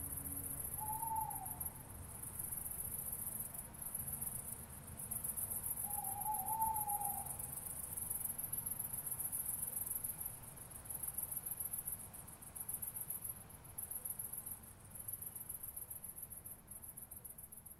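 Night chorus of crickets: a dense, high-pitched pulsing trill. Over it come two short, distant rising-and-falling calls of a night bird, one about a second in and one about six seconds in.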